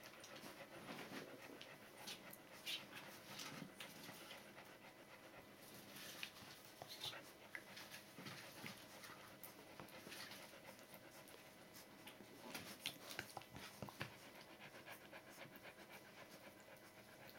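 Border Collie dam panting faintly while nursing, with faint irregular small clicks from her puppies suckling.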